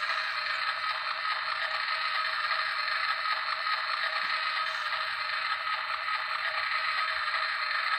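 An egg frying in a small pan, a steady sizzling hiss.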